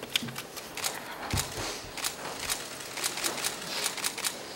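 Press cameras' shutters clicking in quick, irregular volleys, several clicks a second, with one dull thump about a second and a half in.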